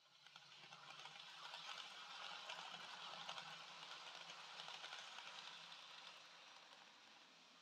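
Dapol N gauge HST model train running past on the track: a quiet whirr of the motor and a rattle of wheels on rail, with fine ticking, that swells as the train nears and fades away as it passes.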